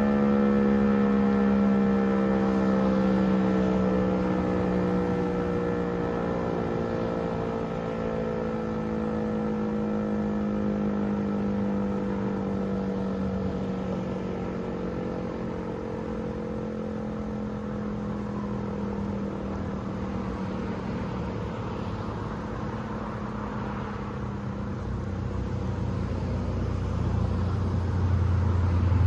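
Federal Signal Eclipse 8 electronic tornado siren sounding a steady tone that falls slowly in pitch as the signal winds down. A low rumble swells underneath near the end.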